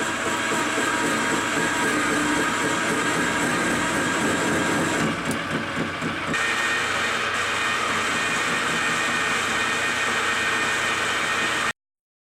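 Enco metal lathe taking a heavy dry roughing cut in an aluminum ingot with a carbide tool under power feed: steady motor and gear whine mixed with cutting noise, which drops out for a moment near the end.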